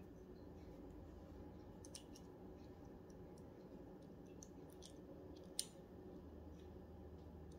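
Faint clicks of small metal parts being handled as the planetary gears and case of an RC car's metal center differential are fitted together, one sharper click about five and a half seconds in, over a low steady hum.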